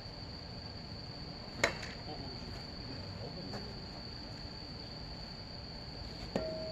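Crickets chirping in one steady high-pitched drone, with a sharp knock about a second and a half in and another near the end, the second followed by a brief ring.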